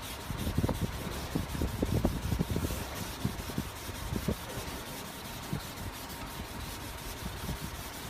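Hand wet-sanding of polyester body filler on a car panel with sandpaper on a sanding pad, in quick back-and-forth scrubbing strokes. The strokes are louder and busier for the first four seconds or so, then go on lighter and more even.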